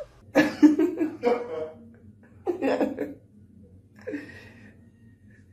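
A person laughing in two short bursts, then a fainter, higher sound about four seconds in.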